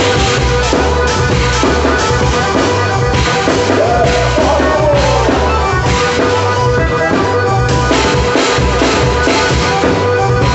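Loud festa junina dance music, with drums and bass keeping a steady beat under held melody notes.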